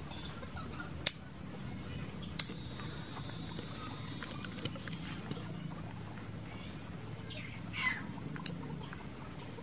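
A few sharp clicks over a steady low hum: one about a second in, one at two and a half seconds, and two near the end, the first of those the loudest.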